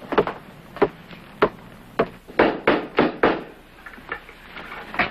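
A series of about eight hollow wooden knocks, the first four slow and evenly spaced, the rest coming about twice as fast.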